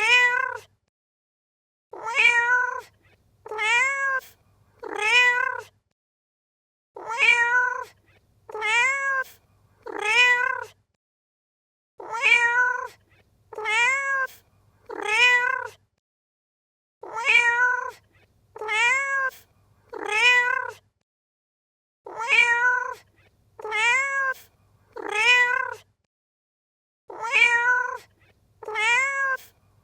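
A domestic cat meowing in sets of three, each meow rising and then falling in pitch, with a new set about every five seconds and silence between. The sets repeat alike, as a loop.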